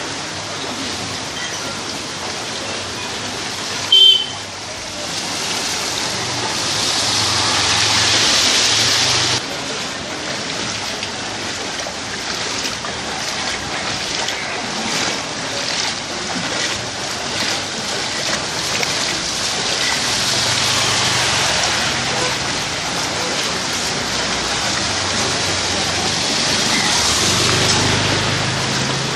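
Floodwater sloshing and splashing as people wade and a scooter is pushed along a flooded street, over a steady rush of moving water. A brief loud sharp sound about four seconds in.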